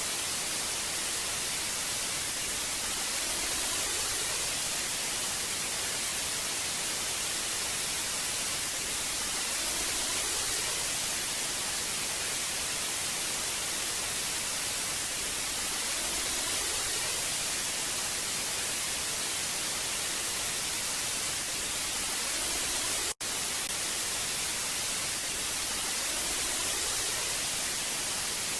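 Old TV static: a steady, even hiss of snow noise, brightest in the high end. It cuts out for a split second about three-quarters of the way through.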